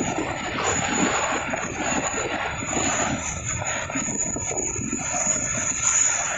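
Distant jet engines of a formation flypast, airliners escorted by small aerobatic jets, making a steady roar with a thin high whine above it.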